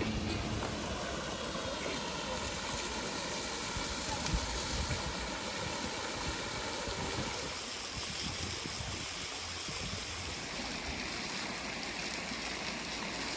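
Garden fountain splashing: jets of water falling steadily into its pool, a continuous even hiss.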